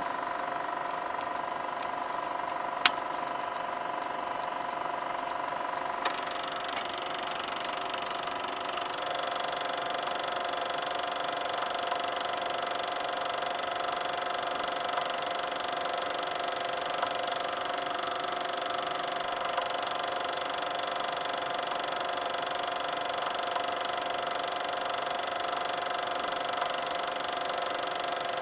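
Super 8 film mechanism running with a steady motor whir and a hum. There is a sharp click about three seconds in. At about six seconds another click comes, and the whir turns brighter as the higher hum drops out.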